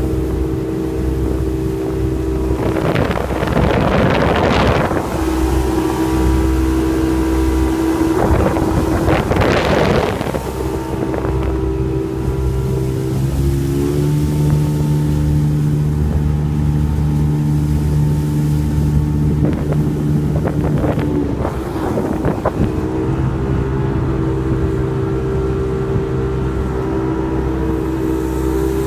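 Motorboat engine of a High Caliber Customs boat running steadily under way, its pitch stepping up or down a few times as the throttle changes. Two bursts of rushing noise come in, a few seconds in and again about ten seconds in.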